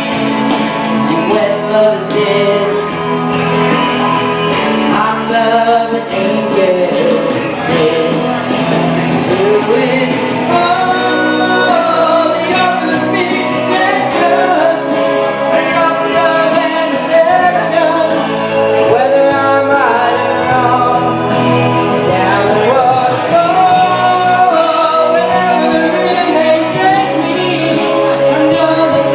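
Music: a pop ballad with singing over a full backing track.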